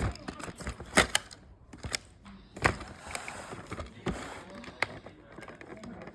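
Handling noise from a boxed toy's cardboard and plastic packaging: irregular knocks and clicks, the loudest about a second in and near the middle, with faint rustling between them.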